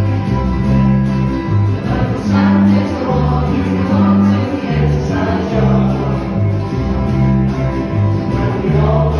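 Small band playing live on guitars and a mandolin: strummed acoustic guitars and electric guitar over a low line that steps from note to note about twice a second.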